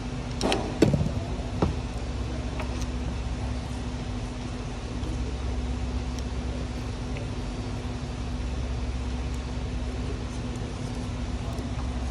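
A few sharp metal clicks and knocks in the first two seconds as a screwdriver works the clip on the air-con condenser pipe joint, over a steady low machine hum that runs throughout.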